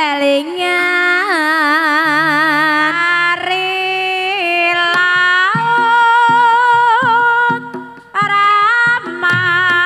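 A sinden, a Javanese female singer, sings a Banyumasan gending in long, ornamented held notes with vibrato over instrumental accompaniment. The music drops out briefly about eight seconds in.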